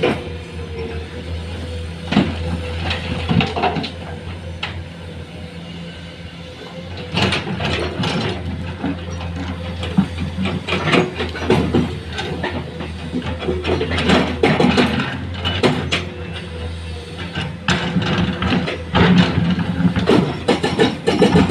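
Heavy construction machinery at work: a diesel engine running steadily under many irregular metallic clanks and knocks.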